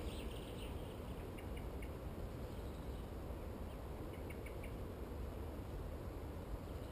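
Faint bird chirps in short scattered groups over a steady low background rumble.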